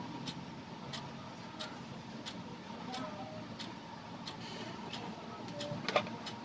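Regular ticking, about three ticks every two seconds, over a low steady hum, with a sharper click near the end.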